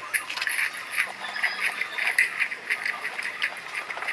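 Close-up eating sounds: irregular wet chewing and mouth clicks, several a second.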